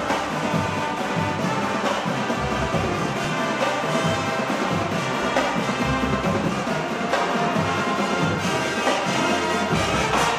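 High school pep band playing a brass tune: sousaphones, trumpets and trombones over a snare drumline, stopping at the end.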